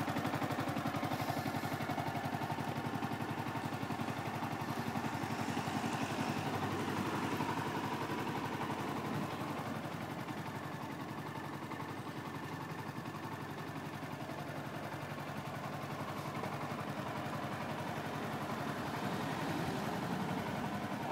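Yamaha R125's single-cylinder four-stroke engine idling steadily through its exhaust, with an even, fast pulse.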